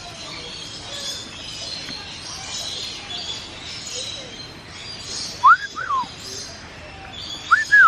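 Many birds chirping and chattering steadily, with two loud whistled calls, each a quick rise-and-fall pair of notes, about two seconds apart in the second half.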